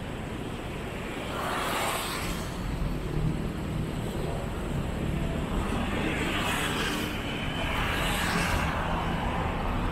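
City street traffic: vehicles passing close by, their tyre and engine noise swelling about two seconds in and again through the second half, over a low steady hum.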